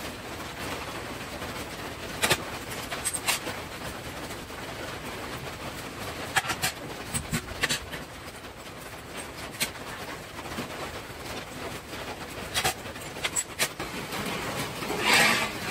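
Scattered sharp metallic clinks and knocks of hand tools and small steel brackets being handled at a steel bench and vise, with a louder cluster of clatter near the end, over a steady background hiss.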